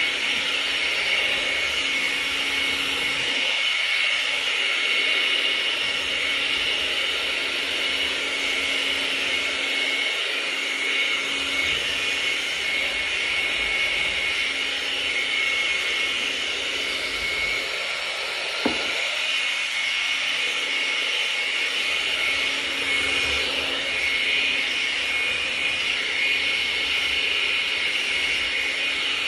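Handheld hair dryer running steadily, a constant whir and rush of air, with a single sharp click about two-thirds of the way through.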